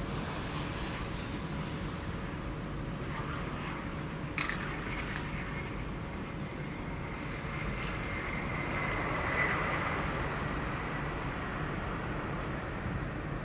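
Jet airliner on landing approach: a broad engine rumble easing off as the plane passes, with a thin steady high whine that swells past the middle. A sharp click comes about four seconds in.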